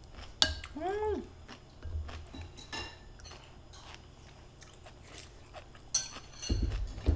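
A wooden spoon and chopsticks clicking against a ceramic soup bowl, with a short rising-and-falling "mm" hum about a second in. Eating sounds close to the mouth come near the end.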